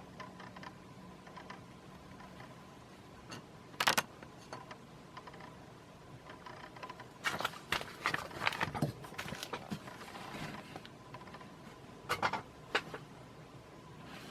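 Paper catalog pages being handled and turned: a short crackle about four seconds in, a longer run of rustling and crinkling in the middle, and two more crackles near the end.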